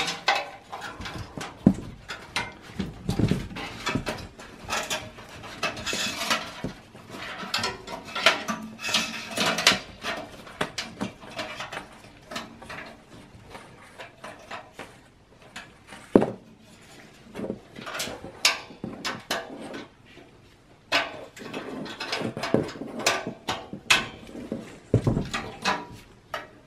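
Irregular clicks, scrapes and metallic clinks of a flathead screwdriver and gloved hands working against the sheet-steel chassis of an HP Pavilion desktop, prying back clips to free the front-panel power switch and LED cable.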